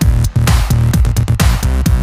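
Background electronic dance music with a steady beat and heavy bass.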